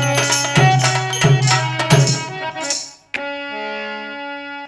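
Instrumental close of a Rajasthani Holi folk song: drum and jingling percussion beating about every two-thirds of a second over a steady drone, stopping a little before three seconds in. Then one last strike and a held chord ringing to the finish.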